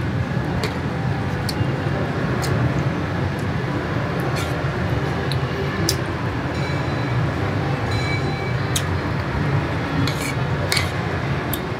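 A metal spoon clicks and scrapes against a ceramic plate about nine times, at irregular intervals, while scooping up chili. A steady low hum of room noise runs underneath.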